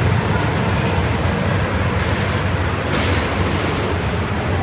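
Go-karts running around an indoor track, a steady engine drone with no break.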